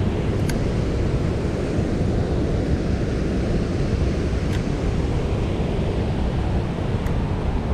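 Steady rush of a fast-flowing creek pouring over rapids, with a few faint clicks.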